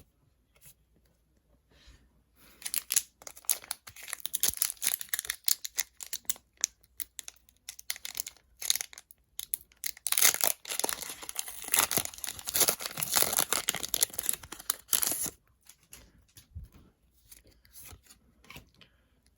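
Foil wrapper of a Pokémon booster pack being torn open and crinkled: a crackling tear that starts a few seconds in and is loudest past the middle. It then thins to a few light clicks near the end.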